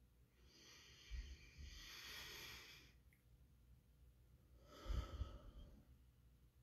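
Quiet breathing of a man close to the microphone: one long breath from about half a second in to about three seconds, then a shorter, stronger exhale about five seconds in that puffs on the mic.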